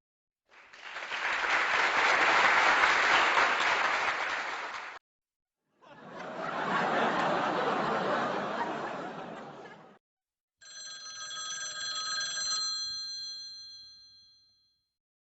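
Three separate sound effects in a row. First come two bursts of noise, each about four seconds long, swelling and then fading. Then a bell-like ringing tone with several high pitches sounds and fades away over about four seconds.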